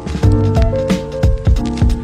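Background music with a steady drum beat under held melodic notes.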